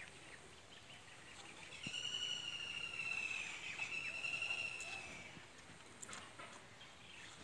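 A high whistling tone with overtones, held for about three seconds from about two seconds in. It dips slightly in pitch and breaks briefly near the middle, over faint outdoor background noise.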